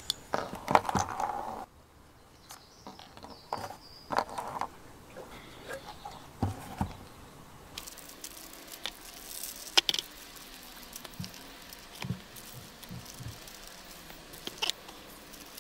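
Hands handling small fishing-kit items: plastic bags rustling and crinkling, with scattered light clicks and taps as a lighter, floats and packets are laid down on cardboard.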